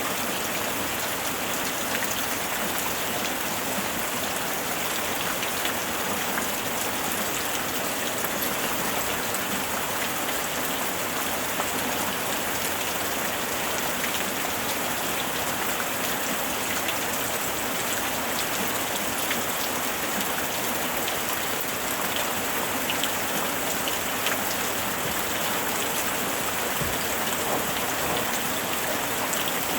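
Steady rain falling, a continuous hiss with many small drop ticks, without thunder.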